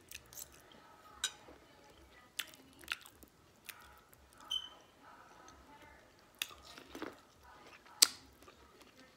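Close-up mouth sounds of eating corn on the cob: biting into the kernels and chewing, with a scatter of short sharp clicks and smacks, the loudest about eight seconds in.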